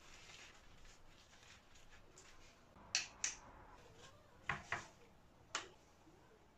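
Faint rustling, then sharp clicks of a metal table knife as it scoops and drops almond paste onto a puff pastry sheet: two clicks about halfway in, two more a second and a half later, and a last one near the end.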